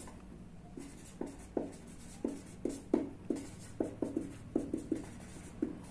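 Marker pen writing on chart paper: about a dozen short, irregularly spaced pen strokes.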